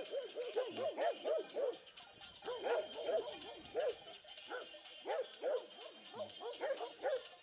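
Dog barking over and over: a quick run of barks in the first two seconds, then barks in short bursts of one to three for the rest.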